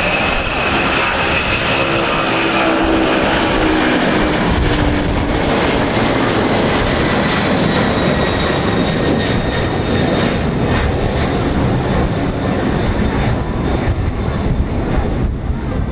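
Boeing 767-300 airliner's twin jet engines at takeoff thrust as it lifts off and climbs away: a loud, steady roar with engine whines that slide slightly down in pitch over the first few seconds, turning more uneven near the end.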